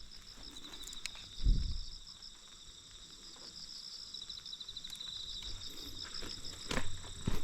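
Insects chirping in steady, fast-pulsing high trills, with a dull thump about one and a half seconds in and a couple of knocks near the end.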